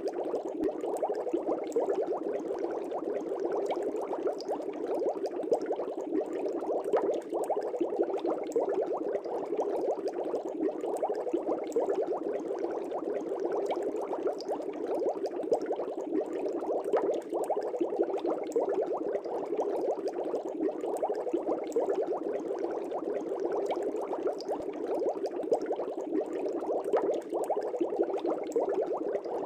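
Fish-tank air bubbles rising through water: a continuous dense bubbling made of many tiny pops, steady in level.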